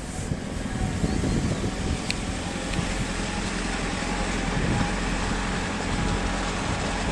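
Electric locomotive hauling a passenger train as it pulls slowly away from a station platform: a steady running noise with a faint whine.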